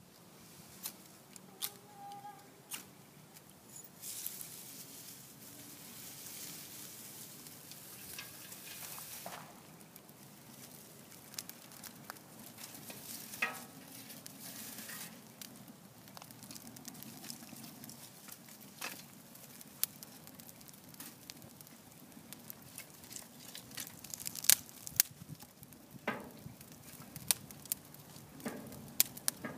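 A ferrocerium fire steel is scraped to throw sparks into dryer lint, with scattered sharp clicks and crackles as the tinder is worked and catches.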